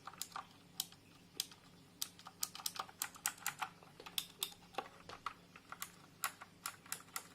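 Typing on a Redragon Varuna mechanical keyboard, each keystroke giving a sharp click from its clicky switches. The keystrokes are irregular: a few scattered ones at first, then a fairly steady run of several a second from about two seconds in.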